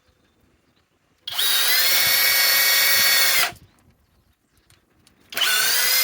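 Flex turbo hammer drill boring a 3/8-inch bit into hardwood. It makes a steady high whine for about two seconds, stops, and starts again near the end.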